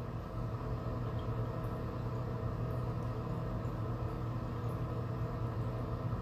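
A steady low hum from a running motor or appliance, even throughout.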